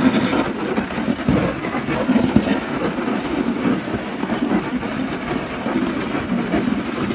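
A husky-drawn dog sled running fast over packed snow: the runners scrape and rumble steadily while the wooden sled frame knocks and rattles now and then.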